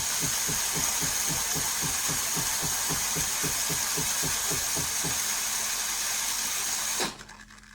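Philips fully automatic espresso machine running, its pump throbbing at about four beats a second over a steady hiss. The throbbing stops about five seconds in, and the hiss cuts off abruptly about two seconds later.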